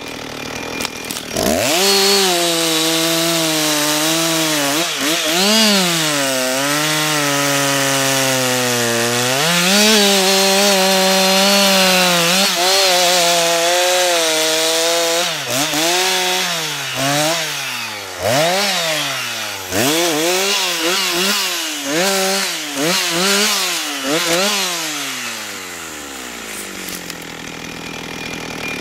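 Husqvarna 357 XP two-stroke chainsaw revving up a second or so in and cutting through a log, its pitch sagging and recovering under load. In the second half the revs rise and fall about once a second, then drop back to idle near the end.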